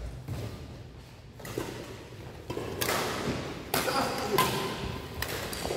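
Badminton rackets striking the shuttlecock during a doubles rally: a few sharp hits, mostly in the second half, ringing in a large hall.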